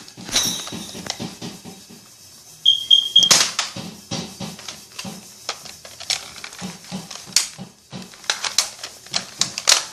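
Plastic Nerf blasters being handled, primed and fired: an irregular run of sharp plastic clicks and clacks, with a short high triple beep about three seconds in.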